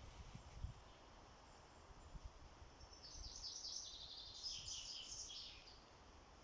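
A small songbird singing a rapid twittering, trilled phrase of quick repeated high notes, lasting nearly three seconds from about halfway in, over faint outdoor background noise.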